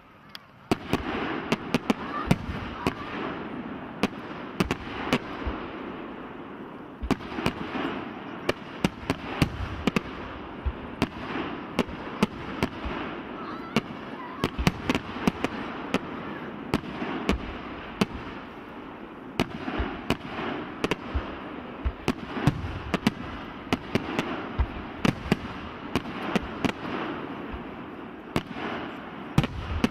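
Fireworks volley: dozens of sharp bangs fired in quick, uneven succession over a continuous crackle, starting about a second in.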